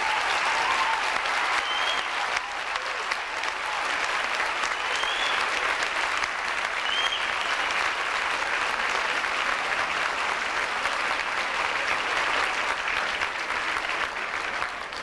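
A large audience applauding steadily in an auditorium.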